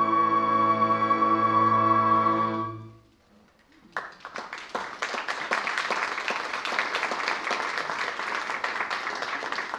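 Orchestra of strings and winds holding its final chord, released about three seconds in. After a second's near silence, the audience starts applauding and keeps clapping.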